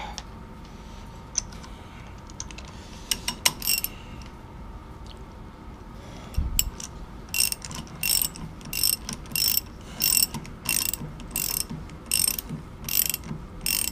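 Socket ratchet clicking as it turns an M20 tap into a hardened steel bar, cutting an internal right-hand thread. A few sparse clicks come first, then a dull knock, then steady ratcheting strokes about two a second from about seven seconds in.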